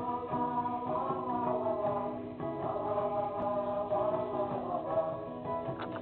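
Background music: a song with singing over a steady accompaniment.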